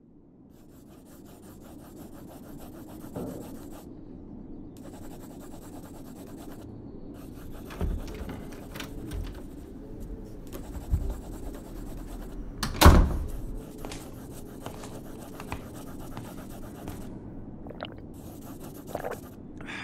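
Pencil scratching on paper in long drawing strokes with short pauses, over a low steady room hum that fades in at the start. A few knocks fall among the strokes, the loudest a thump about two-thirds of the way through.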